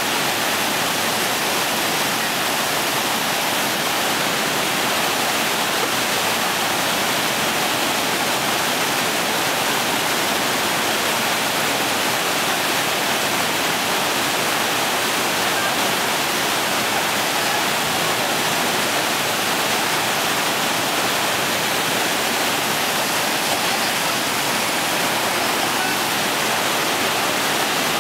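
Waterfall on a whitewater river pouring over a boulder drop into a churning pool: a steady, unbroken rush of falling water.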